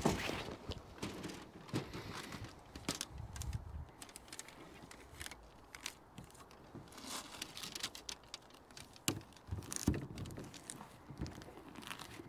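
Twin-wall polycarbonate sheet being handled on a workbench: irregular crinkling, rustling and light taps as the plastic flexes and is turned over, with a sharper knock at the very start.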